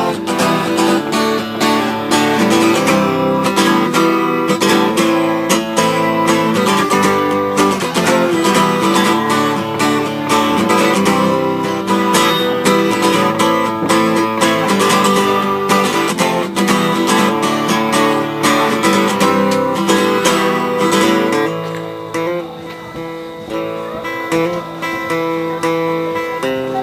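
Acoustic guitar strummed in a steady rhythm, an instrumental break in a country-style song. About 21 seconds in it gets quieter and the high end drops away.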